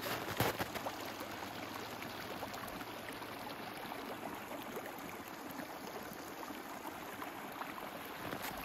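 Hot spring runoff water flowing and trickling over rocks in a shallow channel, a steady, even rushing.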